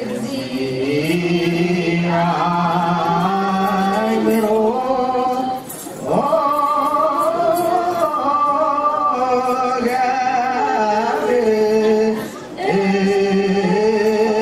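Ethiopian Orthodox Tewahedo mezmur (spiritual song) sung by a small group of singers into microphones. The melody comes in phrases, with short breaks about 6 and 12 seconds in.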